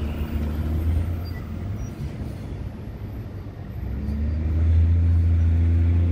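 Heavy truck traffic rumbling, with a low engine drone that grows louder about four seconds in, its note rising slightly as a truck comes by.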